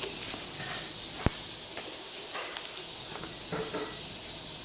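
The packaging of a replacement laptop screen is opened and handled: scattered small clicks and handling noises, with one sharp click about a second in.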